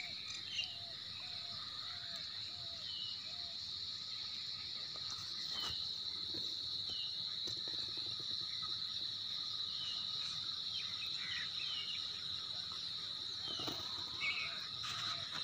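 Steady high-pitched drone of insects, with short bird chirps now and then over it.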